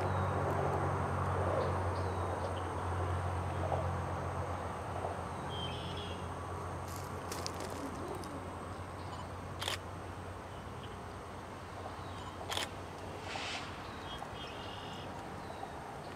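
Diesel freight locomotive engine running with a steady low hum as the train creeps forward, slowly fading. Two sharp knocks come about ten and twelve and a half seconds in, and a bird chirps faintly.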